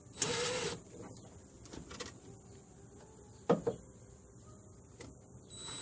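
A self-tapping screw being driven into the sheet-metal firewall to mount a relay: a short noisy burst just after the start, a few light clicks and knocks in the middle, and a higher noisy whine that starts just before the end.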